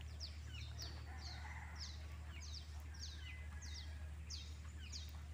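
A bird calling over and over: a faint, steady string of quick, high, falling chirps, two or three a second.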